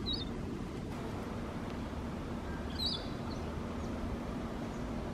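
A bird giving short high chirps, twice, about three seconds apart, over a steady low background noise.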